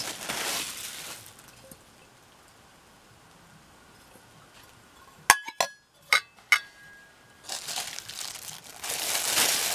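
Stainless steel mixing bowls clinking against each other about four times in quick succession, with a brief metallic ring after the clinks. Plastic wrap crinkles at the start and again near the end.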